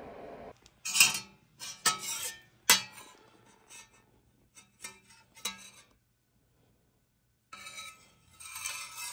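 Dishes and utensils clinking: several sharp strikes with a short ring, a few in quick succession, then silence. Music comes in near the end.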